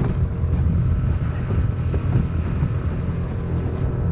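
Jonboat's outboard motor running steadily at a constant pitch, with wind noise on the microphone.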